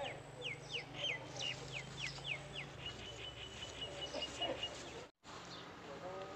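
A bird calling repeatedly with short, high, falling notes, about three a second. About three seconds in it switches to a fast run of rapid notes at one pitch that lasts until about four and a half seconds. The audio cuts out for an instant just after five seconds.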